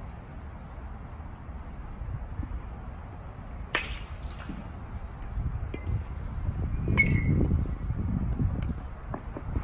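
A single sharp crack of a fungo bat hitting a baseball about four seconds in, sending a ground ball to the infield. A fainter click follows about three seconds later, over a low rumble of wind on the microphone.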